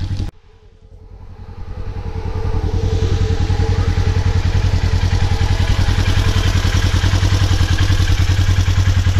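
Polaris RZR 900 side-by-side's DOHC engine idling up close, with a fast, even firing pulse. It comes up from quiet over the first couple of seconds, then runs steadily.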